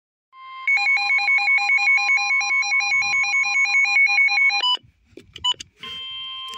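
Electronic emergency-alert tones from an alert receiver. A rapid pulsing two-note beep runs for about four seconds and stops with a few clicks. Near the end a steady alert tone starts.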